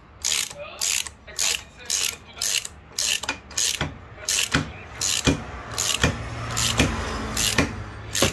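Ratchet wrench clicking in short, regular strokes, about one and a half a second, turning a bolt into the water-filled bore of a snowmobile drive clutch to press the clutch off the crankshaft taper by water pressure.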